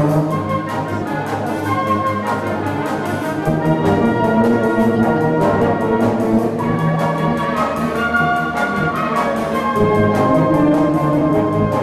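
High school wind band playing a medley of film tunes in full ensemble, with brass to the fore in sustained chords.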